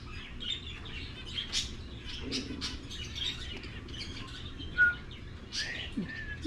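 Many caged pet birds chirping and tweeting at once in a busy, overlapping chatter, with a few short clear whistles near the end, the loudest about five seconds in.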